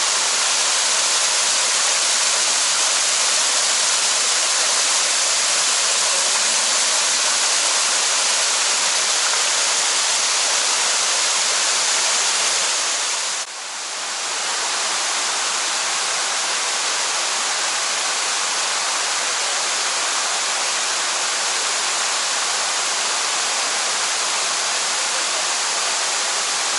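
Shiraito Falls: groundwater spilling from a wide rock face in many thin strands, making a steady rushing of falling water. The level dips briefly about halfway through.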